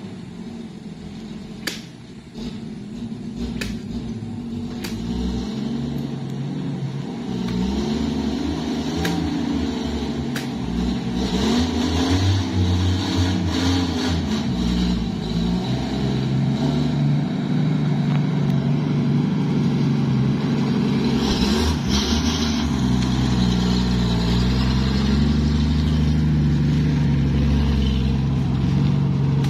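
Engine of a heavily loaded Toyota Land Cruiser hardtop working along a muddy track, its revs rising and falling as it crawls over the ruts and growing louder as it draws near and passes. A few sharp clicks in the first few seconds.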